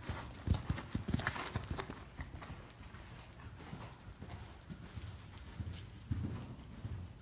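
Horse's hoofbeats thudding on sand arena footing, loudest in the first two seconds as the horse passes close by, then fainter as it moves away.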